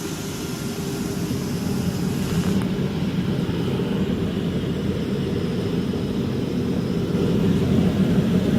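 CNC router machinery running with a steady low mechanical drone. A higher hiss in it cuts off abruptly about two and a half seconds in, and the drone grows slightly louder towards the end.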